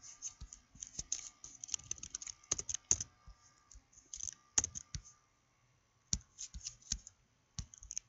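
Computer keyboard being typed on in quick runs of keystrokes, with short pauses between the runs.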